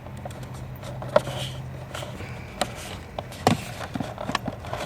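Hand tools and plastic trim being worked on a car's lower dash: a scatter of short clicks and knocks, irregularly spaced, over a low hum that fades out about two seconds in.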